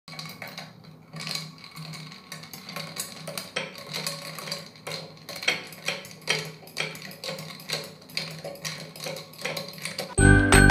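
A metal spoon stirring iced coffee in a tall glass, ice cubes clinking against the glass and spoon in repeated, irregular clinks. Loud, bright chiming jingle music cuts in just before the end.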